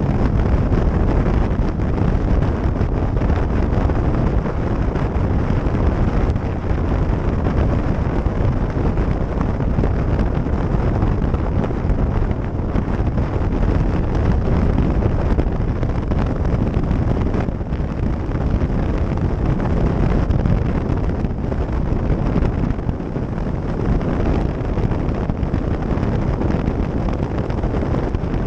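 Steady wind rush on the microphone of a camera riding on a moving motorcycle, mixed with the bike's road and engine noise at cruising speed.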